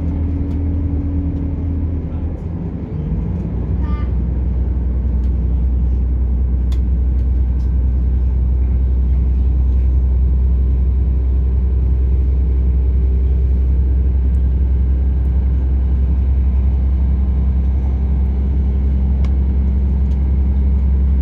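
British Rail Class 170 Turbostar diesel multiple unit under way, heard from inside the carriage: a steady low drone from its underfloor diesel engine together with running noise. About two to three seconds in, the engine note drops and changes, then settles into a steady drone again.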